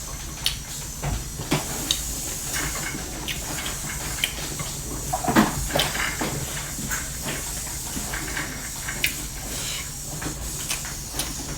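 A person eating dal bhat close to the microphone: irregular chewing, smacking and small clicks, the loudest about halfway through, over a steady hiss.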